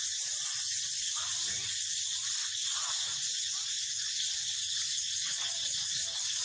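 Steady, high-pitched insect chorus hissing without a break.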